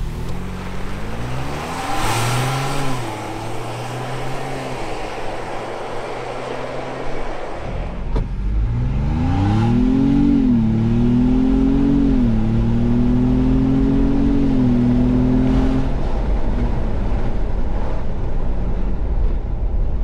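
A 2021 Ford Bronco Wildtrak's twin-turbo 2.7 L EcoBoost V6, heard from inside the cabin, pulling hard on a full-throttle 0-60 run with the stock tune. About a second in the engine speed rises once, shifts and settles into steady running. From about eight seconds it climbs hard, dropping back three times as the automatic upshifts, then lets off, leaving tyre and road noise.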